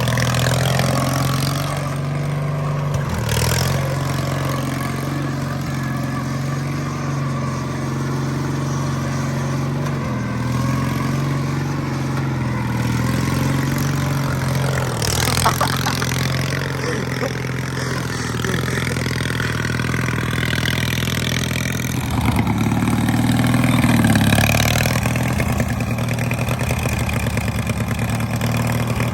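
Mudding lawnmower's small engine running steadily, its pitch shifting and its loudness rising about two-thirds of the way through.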